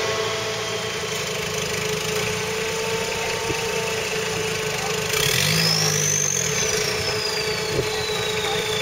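Trial 4x4 buggy's engine running at idle, revved briefly about five seconds in, with a high whine that climbs with the rev and then slowly falls away.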